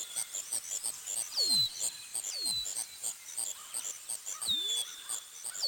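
Forest ambience sound effect: short falling bird whistles repeat about once a second over a fast, even insect chirring, with a few low falling animal calls.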